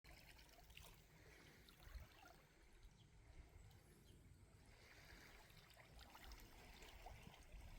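Near silence: faint lapping of small waves on a lakeshore, with a low, uneven rumble underneath.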